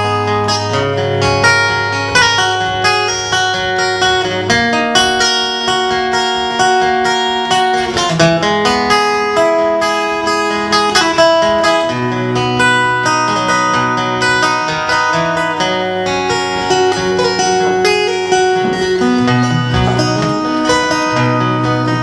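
Acoustic guitars playing an instrumental break between the verses of a slow folk song, steady strummed chords under held notes.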